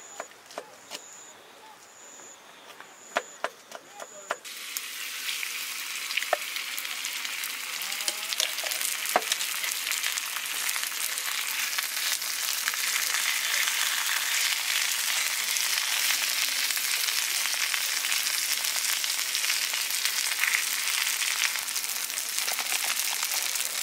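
A knife taps on a plastic cutting board, chopping green onion. About four seconds in, shredded cabbage goes onto a hot griddle and starts sizzling, and the sizzle grows steadily louder as a wooden spatula stirs it.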